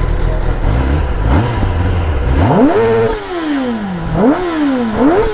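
Stock inline-four litre-class superbike engine idling, then revved hard about two and a half seconds in. It falls back and is blipped twice more in quick succession, the pitch climbing and sinking each time.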